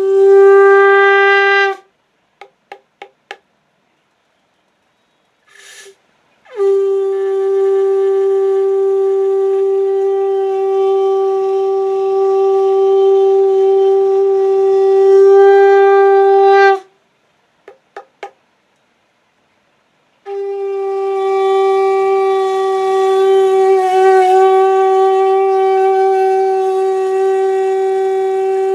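A conch shell blown on a single steady note. A blast ends about two seconds in, followed by four quick toots, then a long blast of about ten seconds and two short toots. Another long blast begins about twenty seconds in.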